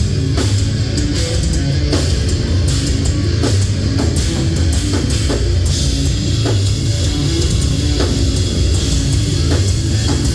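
A hard rock band playing live: distorted electric guitars over a drum kit keeping a steady beat.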